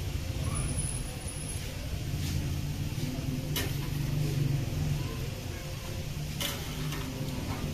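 Steady low rumble of background kitchen noise, with a few sharp clacks from handling on the steel griddle counter, one midway and another near the end.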